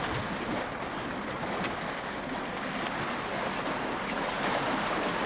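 Steady sloshing and splashing of water as African elephants wade through floodwater.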